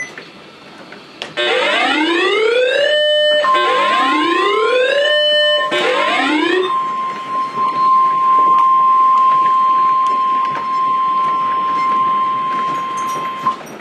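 Severe-weather alert alarm sounding for a severe thunderstorm warning: three rising whooping tones about two seconds apart, then a steady high tone that starts a few seconds in, is held for about ten seconds and cuts off sharply near the end.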